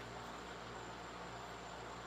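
Steady low hiss with a faint, thin high-pitched whine and a low hum underneath: room tone, with no distinct strokes or knocks.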